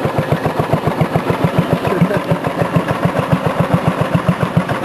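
Task Force riding lawn mower's small engine running at a very slow idle, its idle speed turned down at the carburettor, giving an even train of distinct putts about eight or nine a second.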